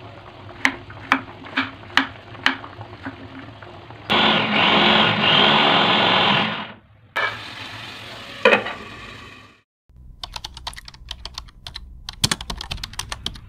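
Kitchen knife chopping carrot on a wooden cutting board, several chops about twice a second, then a small electric food chopper whirring as it grinds spices for a few seconds. After a short silence, a fast run of light clicks, like typing.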